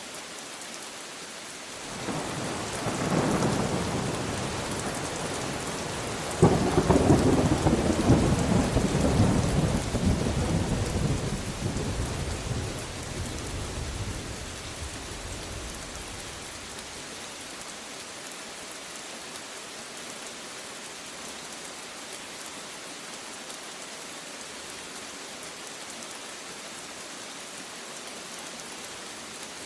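Steady rain with a thunderclap: a rumble builds about two seconds in, then a sharper, louder crack about six seconds in rolls on and dies away over the next several seconds, leaving the rain hiss alone.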